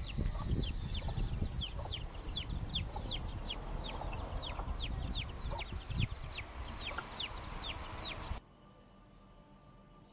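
Chicks peeping rapidly: short high peeps that fall in pitch, about three or four a second, over a low rumble. They cut off suddenly about eight seconds in.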